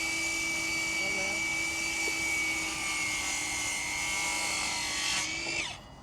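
Electric power tool motor running at a steady high whine, then switched off about five and a half seconds in, its pitch falling quickly as it winds down.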